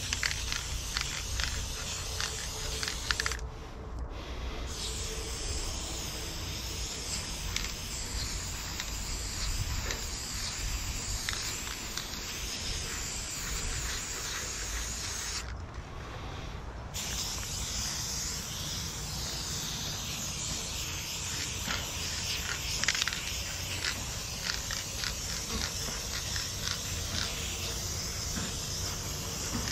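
Aerosol spray paint can hissing steadily as paint is sprayed, stopping briefly twice: about three seconds in and again about sixteen seconds in.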